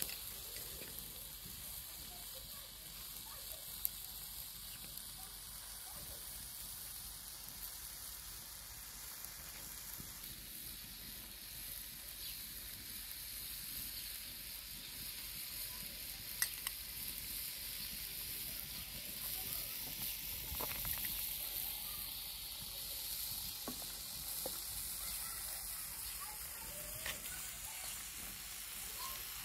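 Food sizzling steadily as it fries in a large shallow iron pan over a wood fire, with a few sharp clicks now and then.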